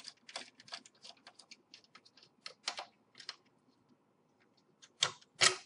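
Light, irregular clicking and tapping of a screwdriver and hands working the screws and plastic case of an Xbox 360 Slim, with two louder clicks near the end.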